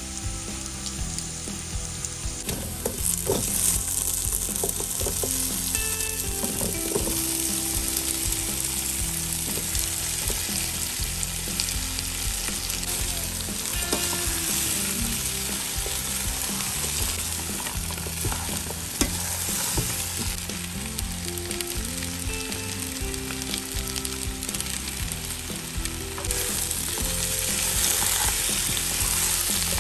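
Hot oil sizzling and crackling in a pot as a tempering of mustard seeds, curry leaves, dried red chillies, garlic and onion fries, with a spoon stirring cubed tapioca and grated coconut through it. The sizzle grows louder about three seconds in and again near the end, and there are scattered sharp ticks.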